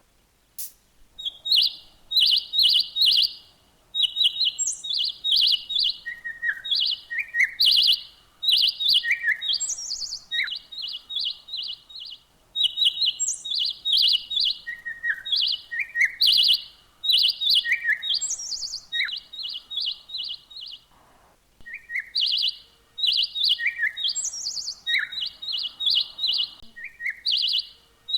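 Small birds chirping: quick runs of high, repeated chirps mixed with short falling notes, in phrases that recur again and again with brief pauses between them.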